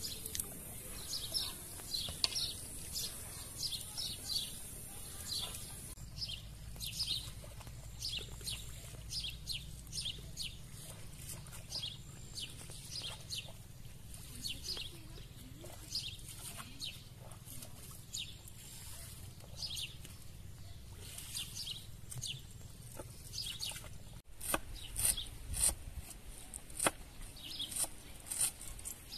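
Small birds chirping and singing throughout. In the last few seconds a knife chops fresh greens on a wooden cutting board, a run of sharp knocks louder than the birds.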